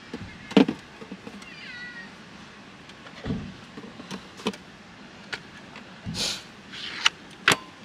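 Aluminium beer cans being set one by one into a small fridge: a series of knocks and clinks of can against can and shelf, with a short falling squeak about two seconds in.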